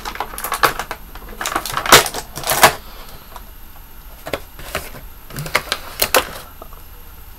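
Plastic and cardboard action-figure packaging being handled as the figure is taken out of its box. There is a quick run of sharp clicks and crinkles for about three seconds, then a few scattered clicks, the loudest two a little after six seconds.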